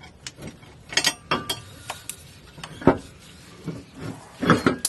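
Scattered metal clinks and knocks of hand tools and bolts against a steel driveshaft safety loop as it is fitted and bolted up under a car, with the loudest knock about three seconds in and a cluster of clinks near the end.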